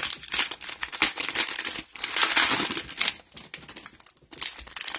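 A cellophane-wrapped trading card pack crinkling as gloved hands handle it and tear it open. The crackling is loud and continuous, with a brief lull near the end.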